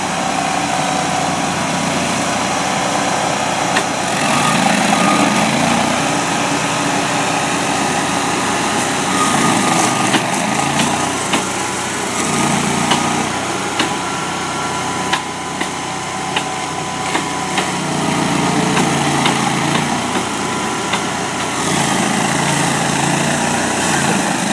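Stump grinder's gas engine running steadily, its note rising and falling every few seconds, with scattered sharp ticks over it.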